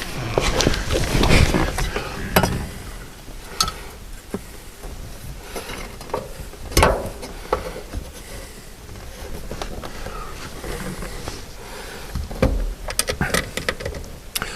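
Scattered clicks and knocks of a car's interior pillar trim being handled and fitted back in place, with a louder knock about seven seconds in and a quick run of clicks near the end.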